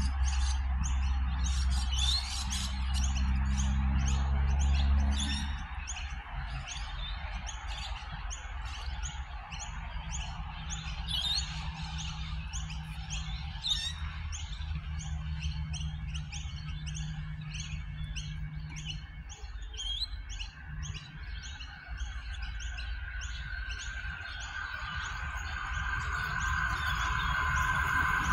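Small birds chirping over and over, with a low steady hum beneath that stops about five seconds in. Over the last few seconds an approaching 4000 class electric train grows louder, with a steady whine.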